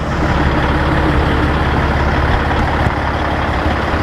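Semi truck's diesel engine running steadily with a deep rumble.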